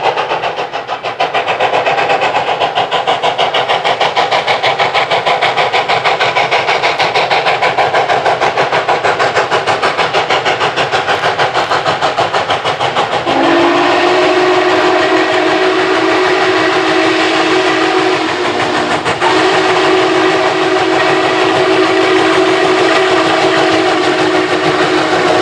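Norfolk & Western 611, a 4-8-4 steam locomotive, working hard up a grade: a rapid, even beat of exhaust chuffs, then from about halfway a long chime steam whistle of several tones blowing, broken briefly near three-quarters through.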